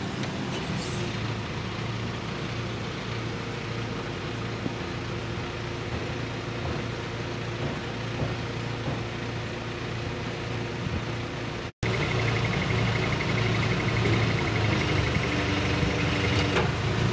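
Aichi SH15B aerial lift truck running with its hydraulic system extending the telescopic boom to full extension: a steady engine and hydraulic pump hum. After a brief cut about twelve seconds in, the hum is louder and a high, rapidly pulsing tone joins it.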